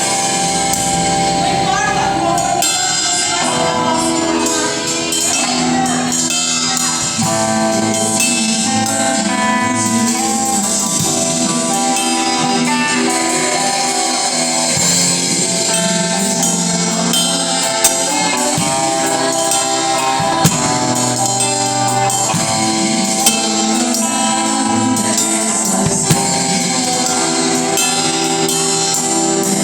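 Live music: strummed guitar and tambourine with a voice singing.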